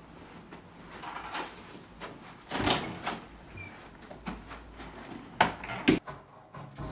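A door being opened and pulled shut, with a loud knock near the middle, then two sharp clicks of the latch and lock as it is locked from the outside.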